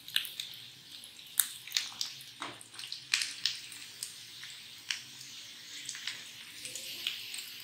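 Breaded spaghetti fingers frying in a pan of hot oil: a steady sizzle broken by frequent sharp pops and clicks from the spitting oil and the metal tongs.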